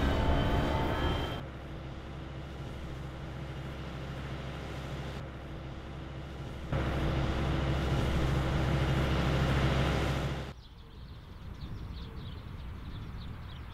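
Tractor engine running steadily as it pulls a crop sprayer, heard in several shots with the level jumping between them. About ten seconds in it gives way to a quieter field ambience with faint bird chirps.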